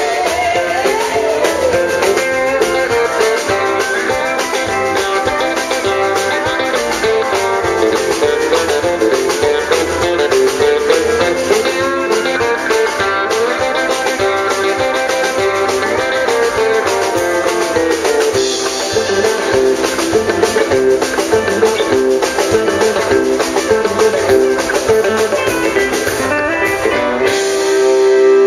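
Live country band playing an instrumental passage: electric guitar and pedal steel guitar, with sliding notes, over a drum kit, ending on a louder held note near the end.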